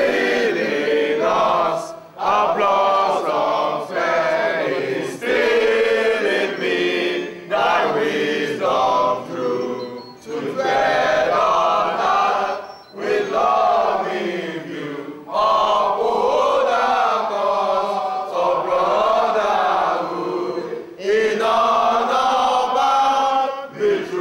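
A group of adults, mostly men's voices, singing their school song together in unison. It is sung in phrases of two to three seconds, with short breaks for breath between them.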